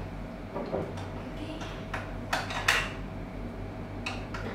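Steel lockout hasp being fitted into a plastic gate valve lockout device: a few light clicks and clinks as the metal jaw is worked into place, over a low steady hum.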